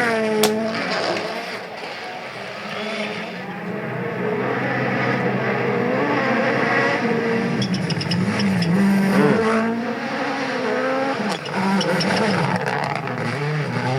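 Rally car engines at full throttle on a gravel stage, the pitch climbing and dropping again and again through gear changes, with a quick falling sweep at the start as a car goes past.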